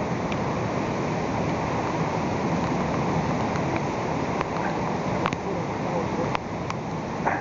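Flash-flood waterfall pouring over a canyon cliff: a steady, dense rush of falling water, with a few faint ticks.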